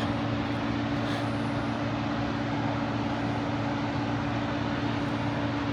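Steady rushing roar of the Snake River's waterfalls at Shoshone Falls, an even unbroken wash of falling water, with a steady low hum beneath it.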